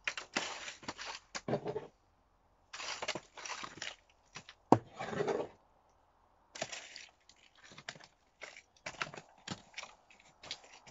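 Potting compost being scooped with a metal hand trowel and scattered over a plastic cell seed tray: several spells of gritty scraping and crunching with short pauses between them, and one sharp click about four and a half seconds in.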